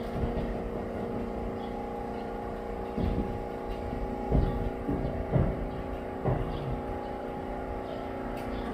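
An engine running steadily at idle, a constant hum of several steady tones. A few louder knocks and short sliding sounds come in the middle, and the hum cuts off suddenly at the end.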